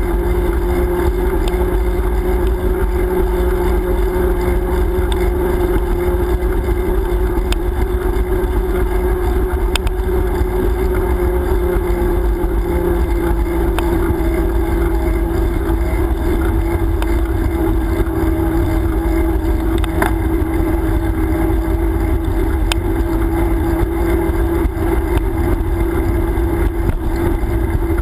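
Wind buffeting a GoPro's microphone while riding a bicycle, a dense low rumble with no letup. Under it runs a steady, slightly wavering droning hum, with a few faint ticks.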